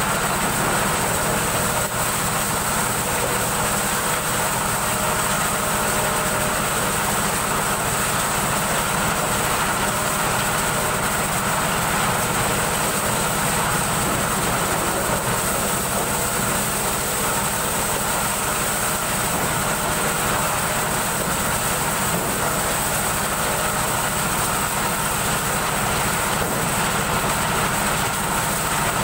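Engine-driven corn sheller running steadily at full speed, a continuous loud mechanical rattle and whir as dried corn cobs are fed into its hopper and stripped of their kernels.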